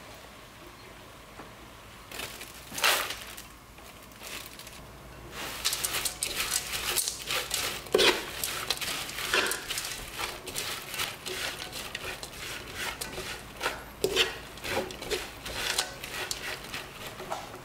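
A metal spoon stirring a panful of small dried anchovies through sauce in a non-stick wok: a dense, crinkly rattle and scrape of the dry fish with clicks of the spoon, starting about five seconds in after a quieter stretch with one brief clatter.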